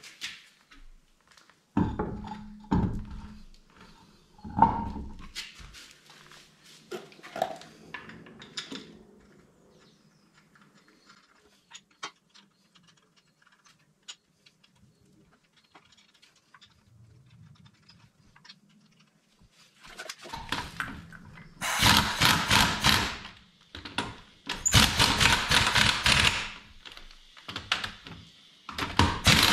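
Metal clunks and knocks as a car wheel is handled and fitted onto the hub, then, after a quiet stretch, a power impact wrench rattling in three or four loud bursts of a second or two each, running the wheel's lug nuts on.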